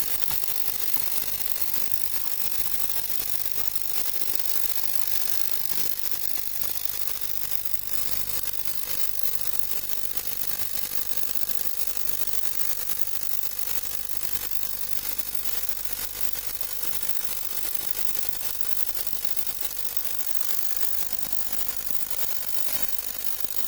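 Ultrasonic cleaning bath running with a water-damaged phone circuit board submerged in solvent, cleaning off corrosion: a steady, even hiss with a thin steady tone beneath it.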